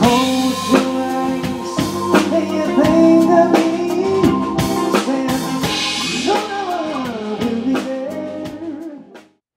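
Live band music with drum kit, guitar and keyboard, playing the end of a song; it fades out a little over nine seconds in.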